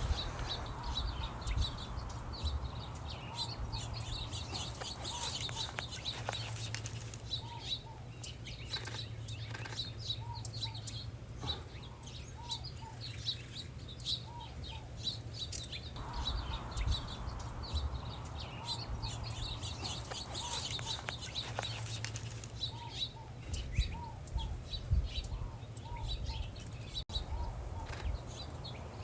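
Several small birds chirping and calling together, with many quick high chirps and a repeated pair of lower short notes, over a steady low hum.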